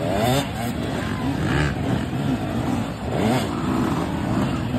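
Several off-road dirt bikes revving as they ride the course obstacles. Their engine pitch rises and falls in repeated surges, about three times.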